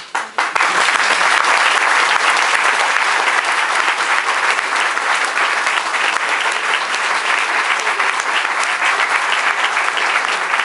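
Audience applauding, with the panelists clapping along: dense, steady clapping that breaks out right at the start and holds evenly.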